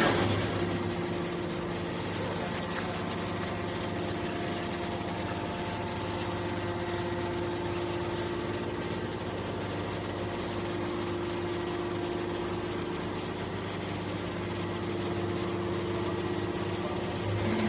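Hydraulic baler's electric motor and pump running steadily with a constant hum.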